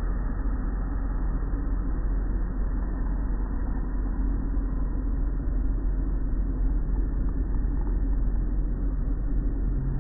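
Automatic tunnel car wash running: an even, steady rumble of its machinery, spraying water and hanging cloth curtains working over a foam-covered car.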